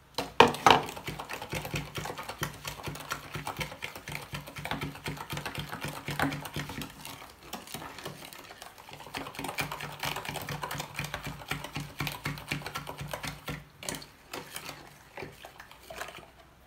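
A metal spoon beating a pastry-cream mixture of egg yolk, sugar, cornstarch and milk in a plastic bowl: rapid clicking and scraping against the bowl, thinning out near the end. A single loud knock comes about half a second in.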